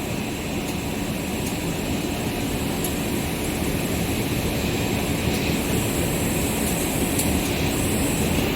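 Steady machinery noise of a rubber hose production line at its winding stage, an even drone with a thin high whine and faint ticks now and then, growing slightly louder.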